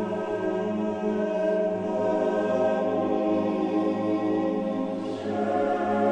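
A choir singing slow, sustained chant in held chords, shifting to a new chord about five seconds in.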